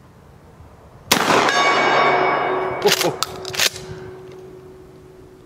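A 12-gauge Ithaca Model 37 pump shotgun fires a slug once, about a second in, and a steel gong rings on after the hit and slowly fades. Around three seconds in come a few sharp clacks as the pump slide is worked back and forward.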